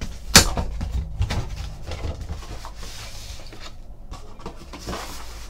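Cardboard box packaging being opened and handled, with a sharp knock about half a second in, then scattered small clicks and rustling.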